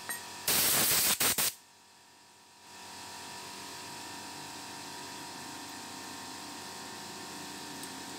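Compressed-air blow gun blasting dust off a scooter's variator ramp plate: a loud, fluttering hiss for about a second near the start, then a quieter steady hiss of air from about a third of the way in.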